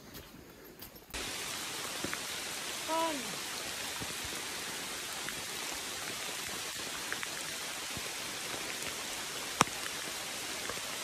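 Steady rain hiss, starting suddenly about a second in. A brief falling voice-like sound comes about three seconds in, and there is one sharp tap near the end.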